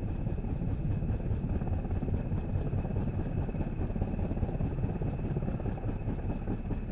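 Helicopter hovering with a slung load: a steady, rapid rotor beat with engine noise and a constant high whine.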